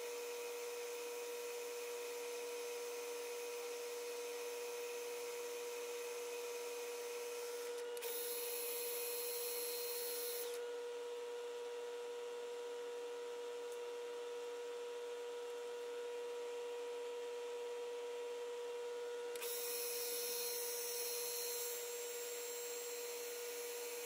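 Small lathe running steadily with a constant motor whine, spinning a finely threaded brass rod. Twice, about a third of the way in and again past the middle, a brighter, higher noise rises over the whine for two to three seconds.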